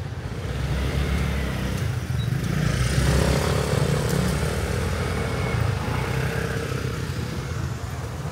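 Street traffic: a motor vehicle engine passing close, loudest about three seconds in.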